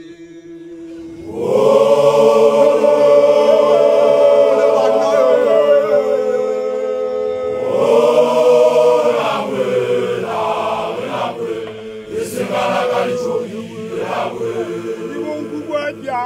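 Group of voices chanting a lekhele, a Basotho traditional chant. About a second in they hold one long note for roughly five seconds, swell again on a second long note around eight seconds, then break into shorter phrases.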